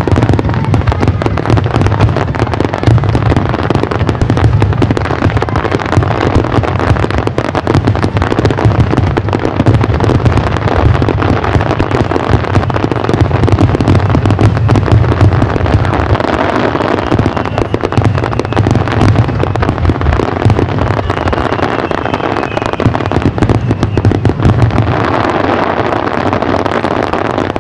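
Aerial fireworks bursting in a rapid, unbroken barrage, many bangs a second overlapping over a deep rumble.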